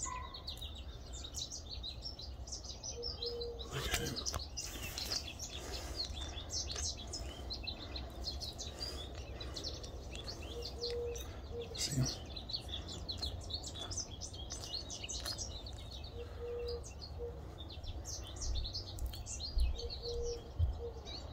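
Small birds chirping and twittering almost without pause, over a steady low rumble. Two sharp clicks come through, about four seconds in and about twelve seconds in.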